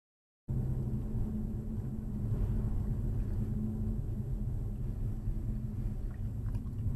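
A car driving on the road, with a steady low rumble of engine and road noise that cuts in abruptly about half a second in.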